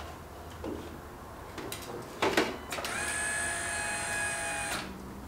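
A few clicks, then a steady electric whine for about two seconds that stops suddenly, from an electric motor or pump in the car as its BMW M5 V10 electrics are switched on for a start attempt.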